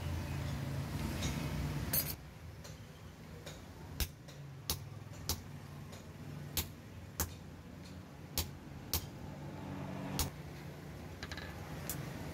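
Hammer blows on a hot-cut chisel driven into a glowing steel blade on an anvil: about ten sharp metallic strikes, irregularly spaced roughly a second apart, the first the loudest. A low steady rumble in the first two seconds stops with that first blow.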